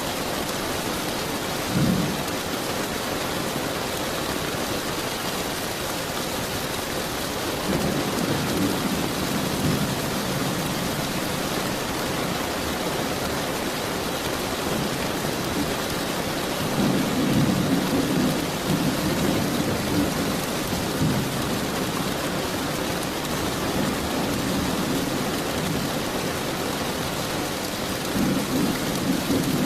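Steady rain with low thunder rolling in and out: a brief rumble about two seconds in, then longer rolls around eight seconds, in the middle, and near the end.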